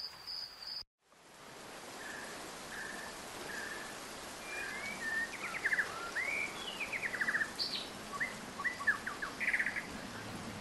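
A cricket chirring steadily, cut off under a second in. Then several birds calling over a steady hiss of light rain: short chirps, slurred notes and quick rattling trills, busiest in the second half.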